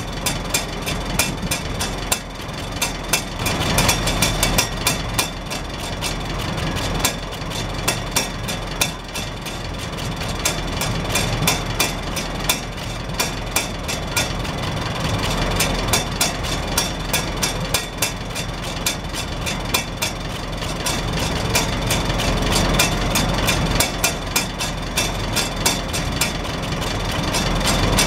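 Farmall Super H's four-cylinder engine idling steadily through its vertical exhaust stack, with the hinged rain-cap flapper on top ticking and chattering rapidly as the exhaust pulses lift it.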